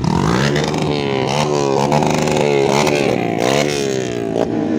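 Small motorcycle engines revving hard. The engine pitch climbs and drops several times as the bikes accelerate and shift, then settles to a steadier note near the end.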